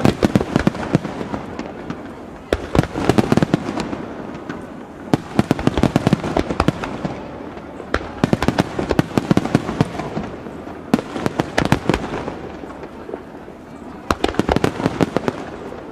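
Fireworks going off in rapid volleys: dense clusters of sharp crackling bangs, one burst after another every two or three seconds with brief lulls between.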